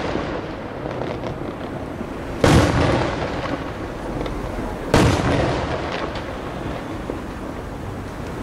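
Aerial firework shells bursting: two sharp booms about two and a half seconds apart, each dying away in a long rumbling echo, with the rumble of an earlier burst fading at the start.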